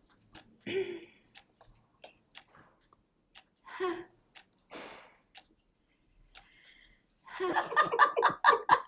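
Women laughing: a few short breathy chuckles, then steady laughter from about seven seconds in, with scattered small clicks in the quiet between.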